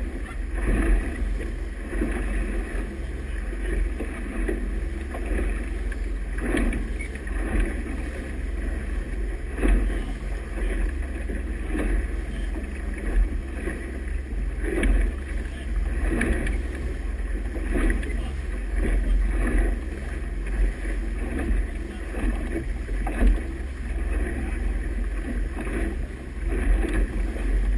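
Motorboat under way: a steady low engine rumble under the churning rush of its wake, with wind buffeting the microphone in irregular gusts.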